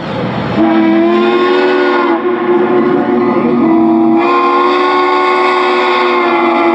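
Steam locomotive chime whistle blowing one long, loud chord of several notes at once, sliding up into pitch about half a second in.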